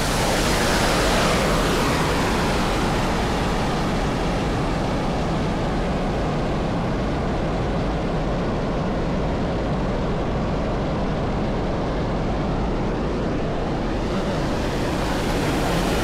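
Waterfall pouring over a spillway into churning white water, a steady rush. The hiss grows duller in the middle and brightens again near the end.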